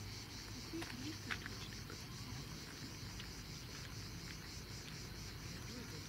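Insects chirring steadily in the scrub, a faint, high, rhythmically pulsing drone, with faint distant voices in the first second or so.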